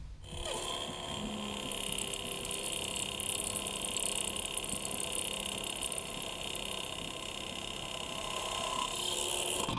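Drill press running, its bit cutting into a metal plate clamped in a vise, a steady sound with several fixed pitches.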